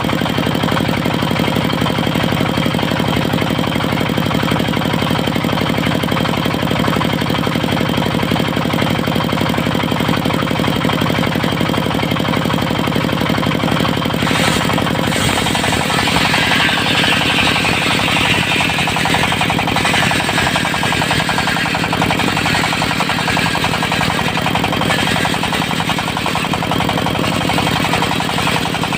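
Diesel engine driving a circular sawmill blade, running steadily with a rapid knock. About halfway in the blade bites into mahogany and a harsher, higher cutting noise joins in for around ten seconds, easing near the end.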